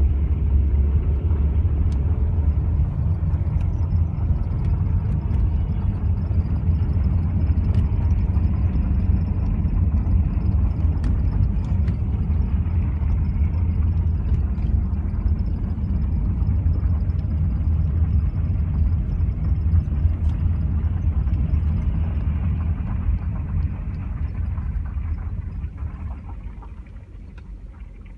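Steady low road and engine rumble inside a moving car's cabin, with scattered short creaks and ticks from a loose dashboard panel. The rumble dies down near the end as the car slows.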